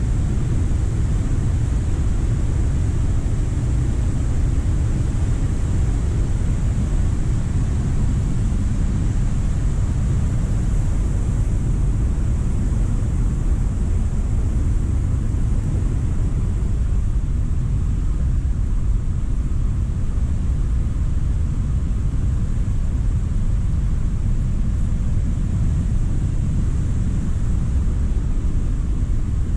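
Cumberland Falls in flood: the waterfall's steady, deep rumble of rushing high water, unchanging throughout.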